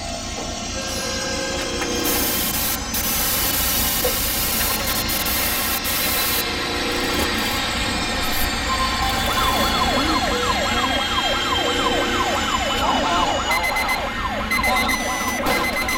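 Dense, loud wash of layered city noise: a constant low rumble under many steady tones. From about nine seconds in, a siren-like wail warbles up and down rapidly for a few seconds.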